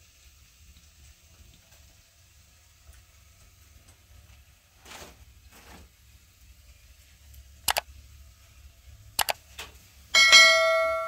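A few sharp clicks and knocks over a low hum. About ten seconds in comes a single loud metallic clang that rings on with several tones and fades.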